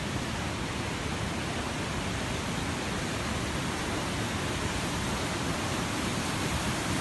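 Flash-flood torrent of mud and water rushing down a street: a steady, even rushing noise with no breaks.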